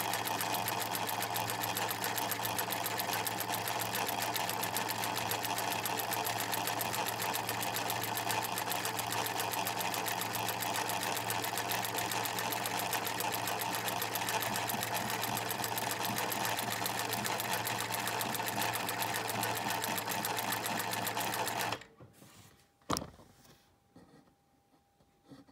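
Singer 107W102 Irish free-motion embroidery machine running steadily at constant speed, satin-stitching an eyelet over its eyelet plate. It stops abruptly about 22 seconds in, leaving a faint steady hum. A single sharp click follows about a second later.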